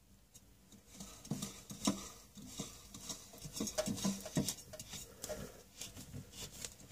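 A new spin-on oil filter being screwed on by hand: fingers rub and slip on the metal canister, making irregular small scrapes and clicks that start about a second in.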